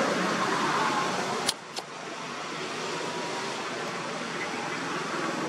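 Road traffic: a car going past, louder in the first second and a half and then a steadier, quieter hum. Two sharp clicks come about a second and a half in.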